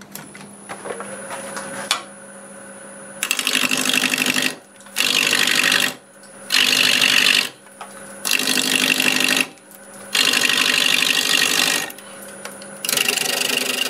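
Bowl gouge cutting a spinning mimosa blank on a Laguna Revo 1836 wood lathe: six loud cutting passes of a second or so each, starting about three seconds in, with short pauses between them. Between the passes, the lathe's steady hum and a thin high whine are heard.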